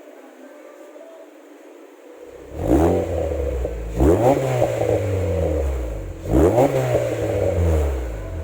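Honda BR-V's 1.5-litre four-cylinder engine, through an aftermarket Jasma round-type muffler, idling quietly and then revved three times, the pitch climbing and falling back with each blip of the throttle. The exhaust note is a solid, slightly crisp rasp.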